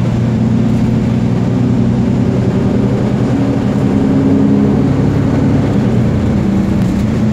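Moving bus heard from inside the passenger cabin: a steady loud drone of engine and road noise, with a low engine hum that rises slightly in pitch about halfway through and then settles back.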